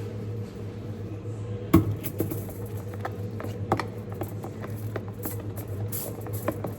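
Scattered clicks and knocks of plastic slime-making things being handled, a plastic spoon and pot among them, the loudest a sharp knock about two seconds in, over a steady low hum.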